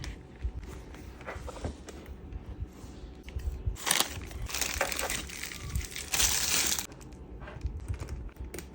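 Plastic packaging crinkling and rustling as it is handled, in irregular bursts that are loudest from about four to seven seconds in.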